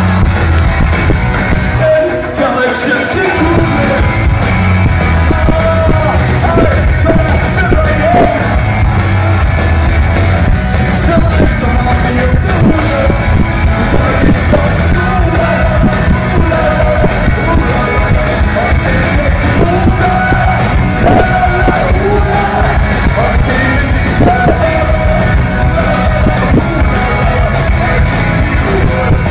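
Loud music with a singing voice, continuous throughout.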